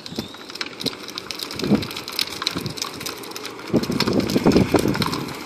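Battery-powered ride-on toy Jeep rolling over asphalt, its hard plastic wheels crunching and rattling on the pavement. The sound is loudest about four seconds in, as it passes close by.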